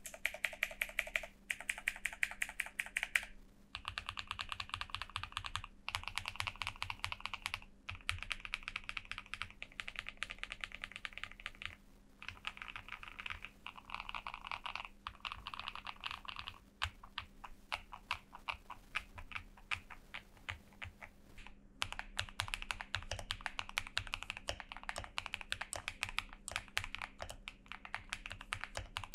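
Mechanical keyboard with KTT Strawberry linear switches, lubed with Krytox 205g0 and filmed, being typed on fast. The keystrokes come in runs, broken by brief pauses every few seconds.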